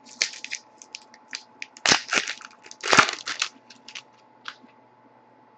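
Foil wrapper of a Panini Contenders hockey card pack being torn open and crinkled as the cards are pulled out, in a run of short irregular crackles that are loudest about two and three seconds in and die away by about four and a half seconds.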